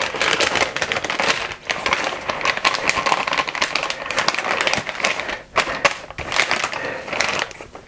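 Clear plastic vacuum-sealer bag crinkling and crackling as gloved hands slide a steak into it and press it flat.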